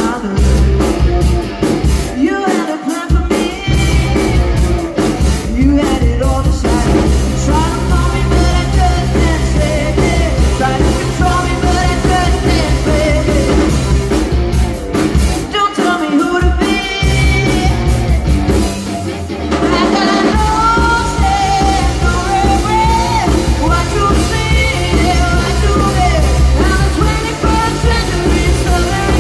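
Live indie rock band playing a song: electric guitar, bass guitar and drum kit, with a sung lead vocal. The bass and drums break off briefly about twenty seconds in, then come back.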